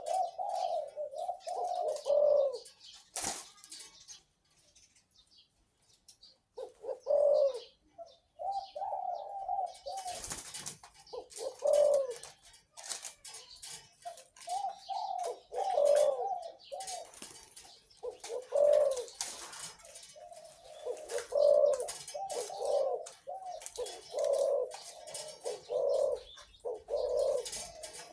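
Dove cooing in repeated rolling, warbling phrases, with a pause of a few seconds early on and the cooing coming almost without break in the second half. A single sharp click is heard a few seconds in.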